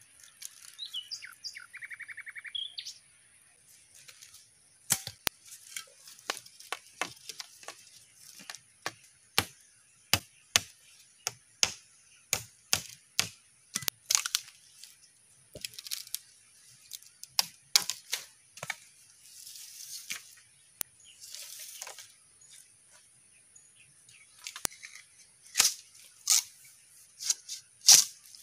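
A bird calls briefly, then a long run of sharp, irregular cracks and snaps, several a second at times, over a faint steady high hiss.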